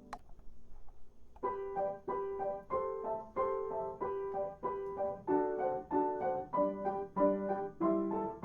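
Instrumental piano music, a gentle repeating pattern of notes that begins about a second and a half in, after a short click at the very start.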